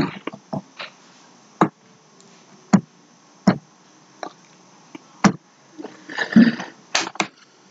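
Computer mouse clicking: single sharp clicks at irregular intervals, about one a second, while an on-screen ruler is dragged and turned. A brief mumbled voice sound comes about six seconds in.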